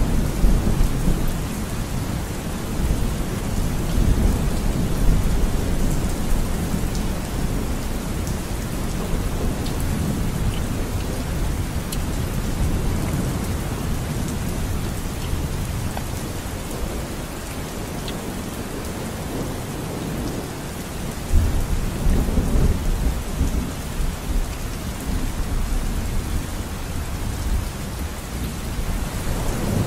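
Steady rain with a deep low rumble under it; the rumble swells about two-thirds of the way through.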